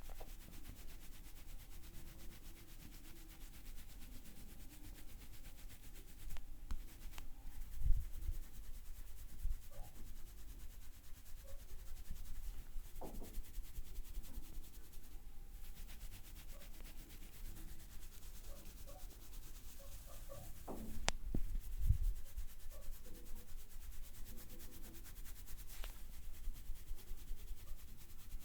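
Hands rubbing and kneading hair and scalp during a head massage, a close rubbing, scratching sound, with a few dull thumps about eight seconds in and again past twenty seconds.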